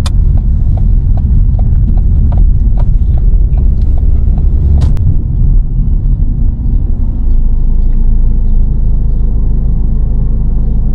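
Car running down the road, heard from inside the cabin: a steady low road and engine rumble, with a run of light clicks in the first half.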